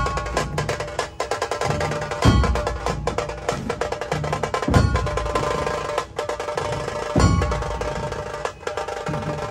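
Music with drums: a heavy, deep drum hit about every two and a half seconds over a busy, fast percussion rhythm and steady tones.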